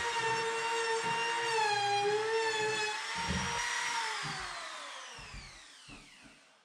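Electric sander running against a wooden timber-frame post, its motor whine dipping and wavering under load with dull knocks from the wood. About four seconds in it is switched off and spins down with a falling whine that fades away.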